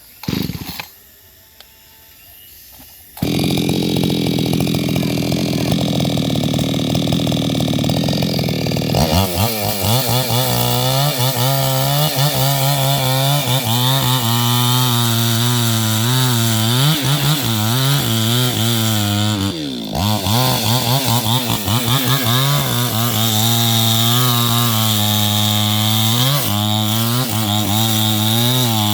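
New West 628 two-stroke chainsaw starting about three seconds in and running steadily. From about nine seconds it runs at high revs with its pitch wavering up and down under changing load, as when cutting wood, with a brief drop in revs near twenty seconds.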